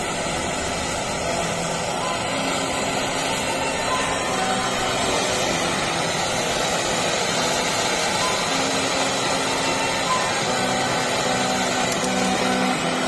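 Gas welding torch flame burning with a steady hiss while a car AC condenser is being welded, with faint music underneath.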